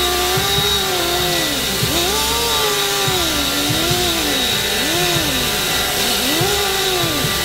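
A handheld cut-off wheel cutting through a steel exhaust pipe, grinding with a loud hiss, its whine repeatedly sagging and recovering as the wheel bites into the metal.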